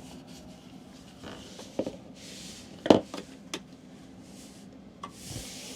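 A few light clicks and knocks over a quiet background, the sharpest about three seconds in, with soft rustling twice.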